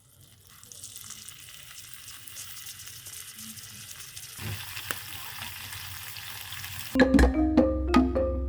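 Eggplant frying in hot oil in a pan over a fire: a sizzle that builds steadily and grows fuller about four and a half seconds in. About a second before the end, music with marimba and percussion starts.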